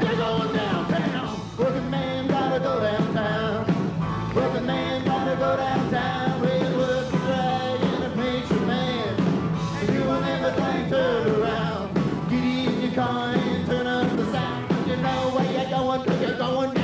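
Live rock and roll band playing, with electric guitars and a lead singer.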